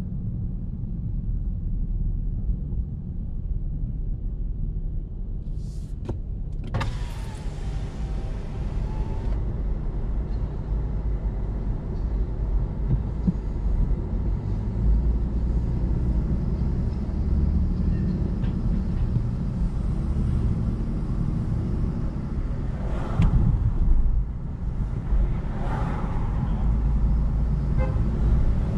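Steady low rumble of a car driving along a city street: engine and tyre noise. A sharp click and a short squeal that falls and rises come about seven seconds in, and there are brief louder traffic noises near the end.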